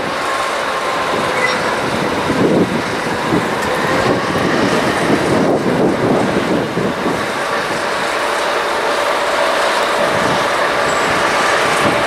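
Ludmilla-type diesel locomotive of the DB Class 232 family running as it slowly hauls a train of hopper wagons, its engine giving a steady drone with a thin whine that slowly rises in pitch in the second half, with the rumble of wagons rolling on the rails.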